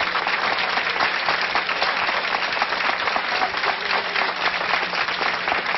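Crowd applauding steadily: dense, continuous clapping.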